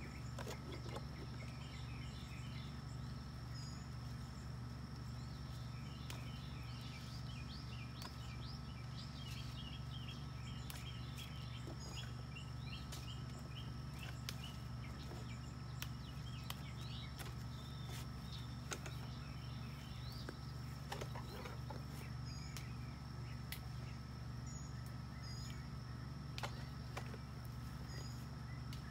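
Outdoor ambience of birds chirping, busiest through the middle, over a steady low hum and a faint steady high tone. Light clicks and rustles come from mulberry leaves being plucked by hand.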